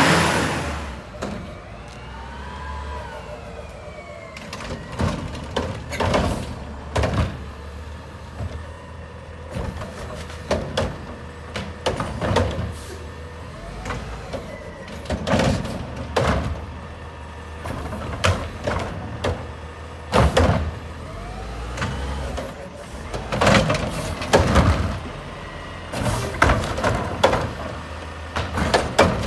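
Front-loader garbage truck with a Curotto-Can automated arm at work: diesel engine running, hydraulic whine rising and falling, and repeated sharp clanks and bangs as carts are grabbed, lifted and tipped into the carry can. A loud rush as a truck pulls away opens the sound.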